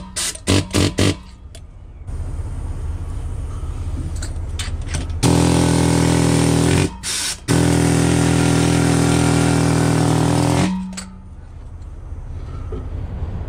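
A few quick, sharp knocks, then a loud motor-driven machine with a steady low hum runs for about five seconds, stopping briefly once and cutting off near the end.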